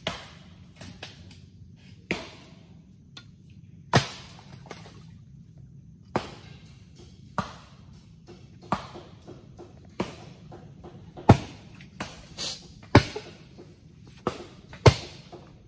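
Repeated chopping blows into dead mangrove wood, splitting it open to get at the shipworms (tamilok) inside. About a dozen sharp cracks come irregularly, one every one to two seconds.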